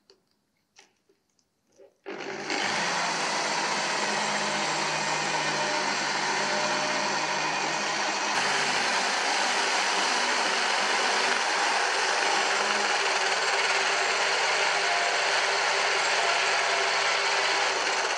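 Power drill running steadily, spinning a welding rod held in its chuck while the rod is sanded clean with sandpaper: a steady motor whine with a hiss. It starts about two seconds in, after a few light clicks.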